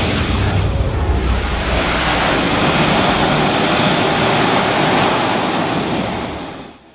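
Loud, steady industrial roar of a copper smelter's converter aisle, with a deep rumble in the first second or two; it fades out near the end.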